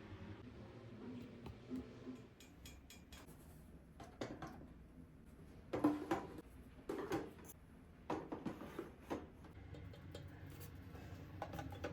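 Household objects being handled: a scattered series of short clatters and knocks, the loudest about halfway through and a quick cluster soon after.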